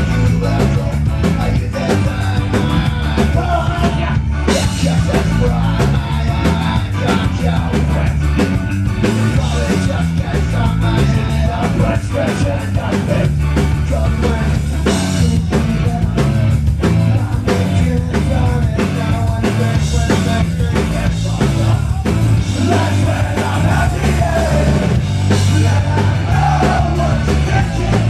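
Live rock band playing loud and without a break: electric guitars, bass and drum kit, with a singer's vocals over the top.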